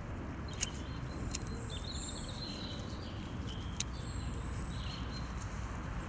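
Outdoor garden ambience: small birds chirping now and then over a steady low rumble of wind. A few sharp clicks and light rustling come from dried sunflower stems being handled and pulled up.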